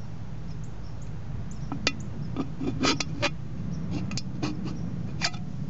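Knife tip clicking and scraping against a thin aluminium Foster's beer can, a scatter of sharp ticks from about two seconds in, over a steady low rumble.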